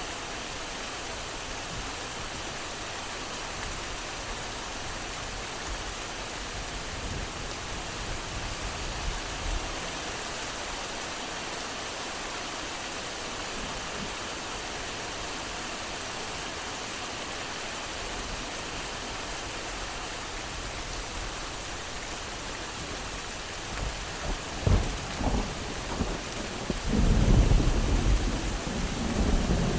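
Steady rain falling, with distant thunder: a faint low rumble about a third of the way in, then a few cracks followed by a louder, rolling rumble near the end.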